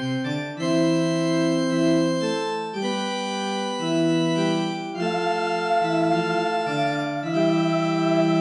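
Synthesised church organ playing a slow tune in sustained chords, starting suddenly out of silence, the chords changing every second or two.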